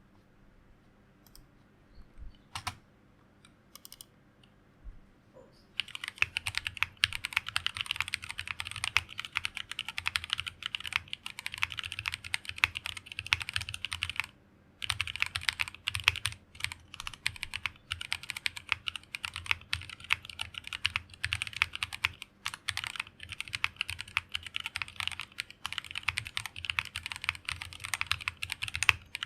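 Fast continuous typing on a plateless 60% mechanical keyboard fitted with stock Tropical linear switches (63.5 g, polycarbonate top and nylon bottom housings). A few lone keystrokes come first; about six seconds in, the typing turns steady and rapid, pausing briefly about halfway.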